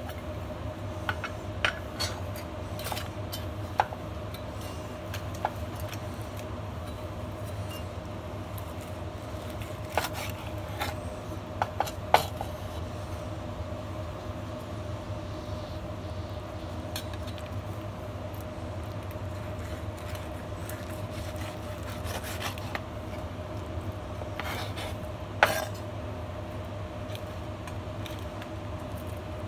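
Metal fork and knife clinking and scraping on a wooden cutting board while cooked chicken is sliced: scattered sharp clicks, two of them much louder, one near the middle and one later on. A steady low hum runs underneath throughout.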